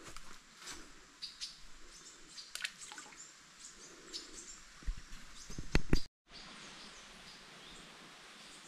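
Forest birds chirping in short, scattered high notes, with a few sharp knocks about five to six seconds in that are the loudest sounds here. The sound drops out for a moment just after, then the forest background carries on more evenly with fainter chirps.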